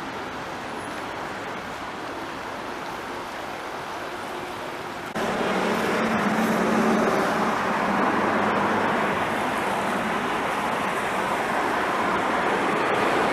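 Steady outdoor road-traffic noise, a continuous hiss of passing vehicles, stepping up abruptly louder about five seconds in.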